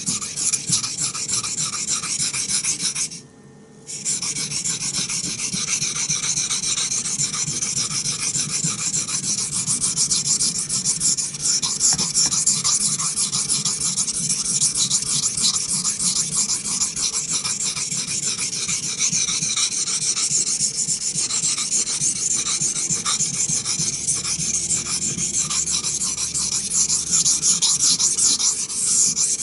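An A2-steel Bravo 1 knife blade being ground on a wet Naniwa Chosera 400-grit waterstone in rapid back-and-forth strokes, a gritty rasping scrape that stops briefly about three seconds in. The coarse stone is honing chips out of the edge.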